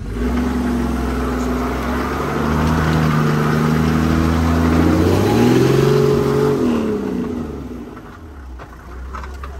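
Toyota Land Cruiser's engine under throttle off-road, heard from inside the cabin: the revs climb, peak past the middle, then drop back as the throttle is eased off.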